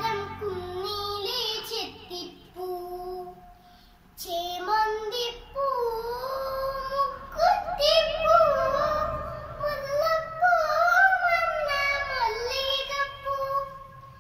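A young girl singing solo, holding and bending sung notes, with a short pause about three seconds in before she carries on.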